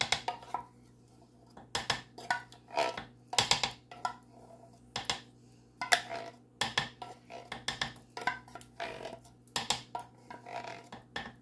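A wooden spoon scraping and tapping inside a jar of thick Alfredo sauce, scooping out the last of it: a string of short, irregular scrapes and clicks with brief pauses between them.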